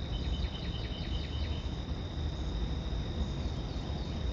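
Crickets chirping: a rapid run of short repeated chirps in the first second and a half over a steady high-pitched trill. A low steady rumble runs underneath.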